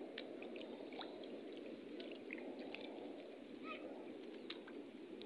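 Steady beach ambience at low tide: a low, even rushing with faint, scattered short chirps and clicks over it.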